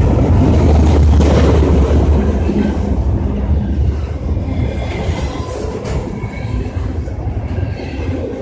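Train running along the track past the platform, a heavy rumble loudest in the first two or three seconds and then easing off.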